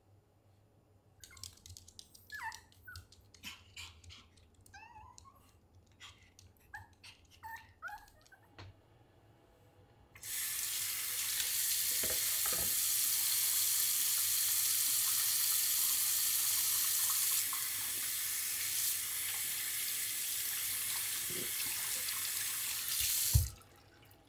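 A few light clicks and short high squeaks, then a single-lever washbasin tap turned on, running steadily for about thirteen seconds while hands are rinsed under the stream. The tap is shut off near the end with a knock.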